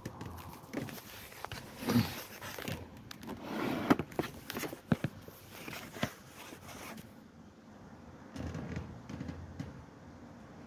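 Scattered light clicks, taps and scrapes of hands handling small parts on a bench, with a few soft swells of noise. They are busier in the first seven seconds and quieter after.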